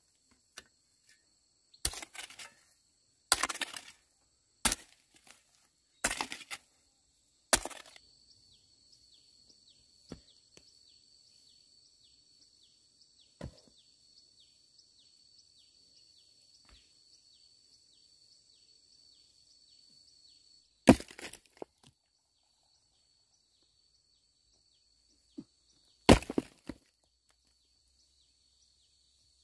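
Sharp chopping strikes on wood: five blows about a second and a half apart, then a long pause, then two more blows.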